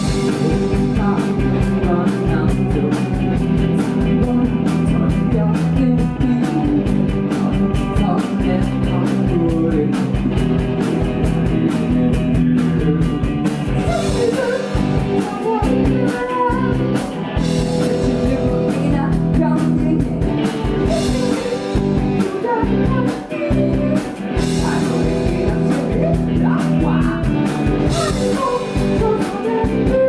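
Live rock band playing: electric guitars and drums, with a man singing lead into the microphone.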